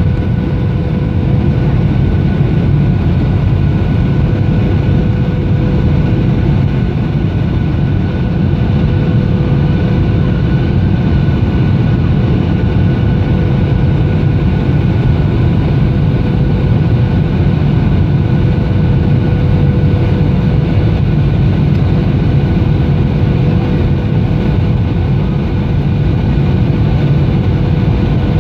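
Steady rumble of an airliner's engines and rushing air, heard inside the cabin on final approach to landing, with a faint steady whine over the rumble.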